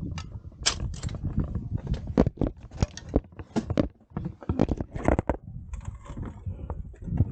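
Irregular sharp crunching knocks and scrapes over a low rumble, typical of ice-axe picks and crampon points biting into frozen waterfall ice during a climb.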